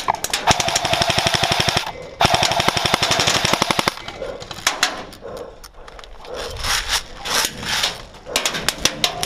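Airsoft rifle firing two long full-auto bursts with a steady whine under the rapid clicks, then scattered single shots and short bursts of airsoft fire.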